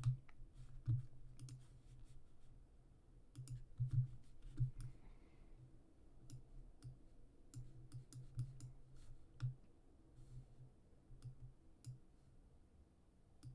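Faint, irregular clicking of a computer mouse, a few scattered clicks every second or so.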